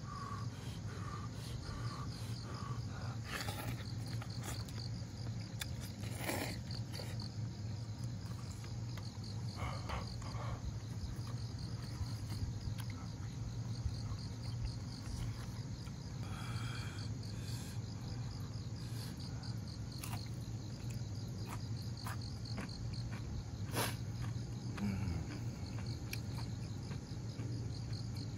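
Crickets chirping in fast, regular pulses over a steady low hum, with a few sharp clicks scattered through.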